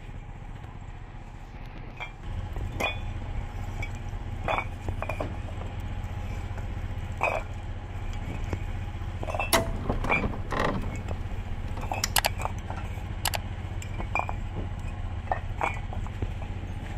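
A motor or engine running steadily with a low hum, louder from about two seconds in, with irregular knocks, creaks and short metallic clinks of work going on over it.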